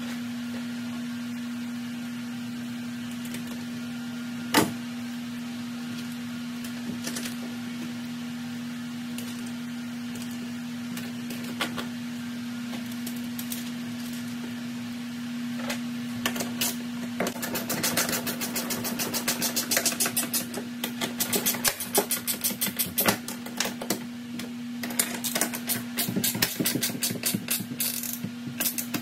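Ratchet wrench clicking rapidly in runs as a bolt through the jon boat's aluminum transom is tightened, starting a little past halfway. Under it runs a steady low hum, and there is one sharp knock about five seconds in.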